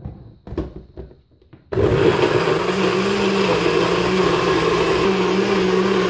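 A few knocks and clicks as the NutriBullet cup is set and twisted onto its base, then, a little under two seconds in, the NutriBullet blender's motor starts suddenly and runs steadily, blending fruit into a smoothie.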